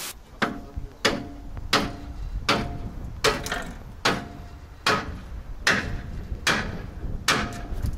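Sledgehammer striking metal trailer axle parts in steady blows, about ten of them at roughly one every 0.8 seconds, each with a short metallic ring.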